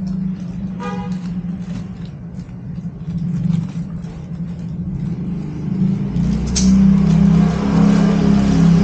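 A steady low engine-like hum that grows louder about six seconds in, with scattered light clicks and a short high chirp about a second in.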